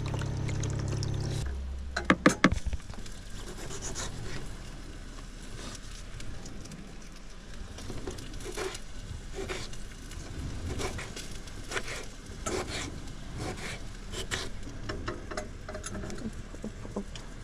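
Light, scattered taps and clicks of cooking utensils, with a quick run of loud knocks about two seconds in. A low steady hum runs under the first second and a half, then stops.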